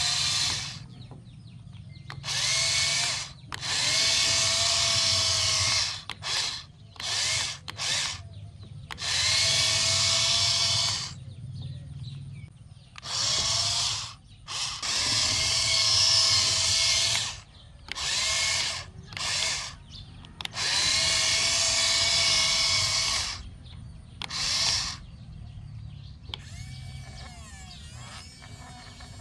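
Remote-control toy excavator's small electric motors whirring in repeated bursts of one to two seconds, starting and stopping as the controls are worked, over a steady low hum. The bursts stop about three seconds before the end.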